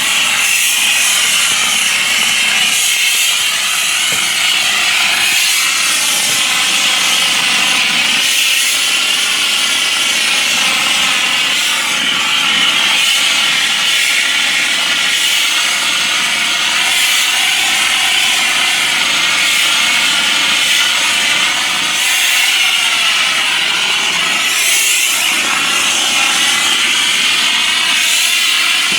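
Tornado AS-5 shotcrete machine spraying vermiculite plaster: a steady, loud hiss of compressed air and mix at the nozzle, with a wavering whistle running under it.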